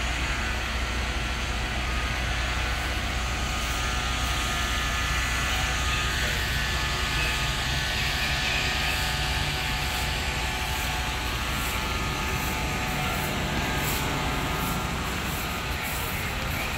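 A parked fire truck's diesel engine running steadily, a low, even drone.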